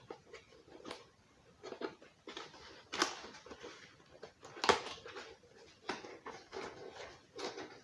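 Handling noises: objects being moved and set down on a surface, with scattered rustles and a few sharp knocks, the loudest two about three and five seconds in.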